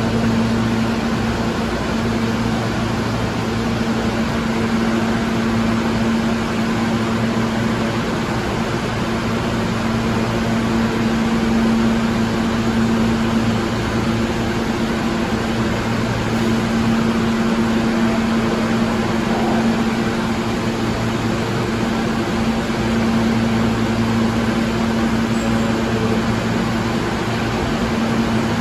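R160 subway train standing at the platform with its air-conditioning and electrical equipment running: a steady hum over a fan-like rushing.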